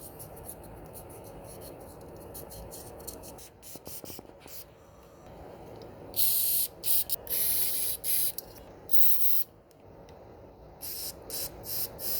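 Pressurized spray hissing in short bursts, several in quick succession about halfway through and a few shorter ones near the end, as the snowblower's carburetor is cleaned. Before the spraying there is faint scratching and handling of parts.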